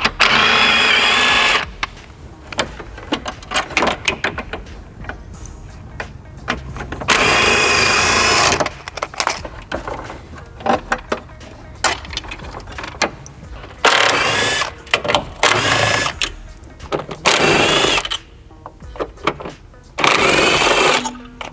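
Electric drill/driver run in six short bursts with a wavering motor whine, the first two and the last the longest, with small clicks and clatter of handled parts between the bursts.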